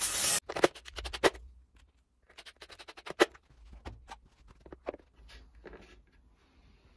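A cordless drill boring into wood stops just after the start, followed by a series of sharp wooden knocks and clicks as small wooden parts and a hand saw are handled and hung on a tool wall.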